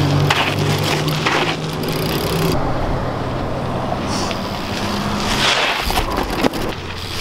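BMX bike tyres rolling and scuffing on a gravelly dirt path during a trick attempt, with a scrape and a sharp knock of the bike near the end. A steady low hum of road traffic fades out in the first few seconds.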